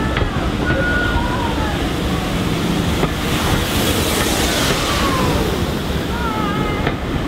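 Passenger coaches of a steam-hauled train rolling slowly past along the platform, wheels running on the rails. Steam starts hissing about three seconds in and fades about two seconds later.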